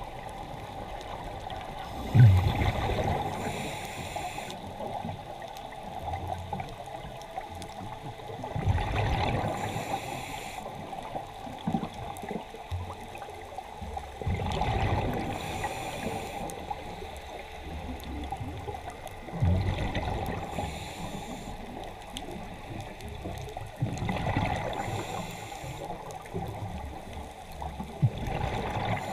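A scuba diver breathing through a regulator, heard underwater through the camera's housing. About every five seconds an exhalation sends out a burst of bubbles, with a short regulator hiss between the bursts.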